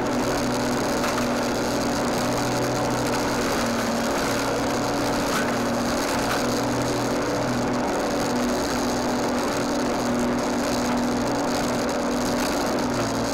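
Lawnmower running steadily, heard up close from on the mower itself, a constant motor drone with a steady hum.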